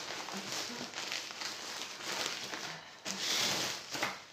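Plastic mailing bag crinkling and rustling as it is handled, in several uneven bursts, the loudest a little over three seconds in, with a short sharp crackle just before the end.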